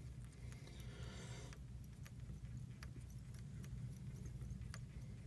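Faint handling sounds of fly tying at the vise: a brief rustle about a second in and scattered light clicks as thread and materials are worked on the hook, over a low steady hum.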